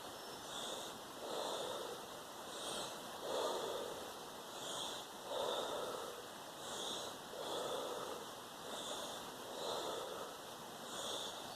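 A person doing a rapid deep-breathing exercise: steady, rhythmic in-and-out breaths through the mouth, about one full breath every two seconds, each inhale and exhale heard as a separate puff.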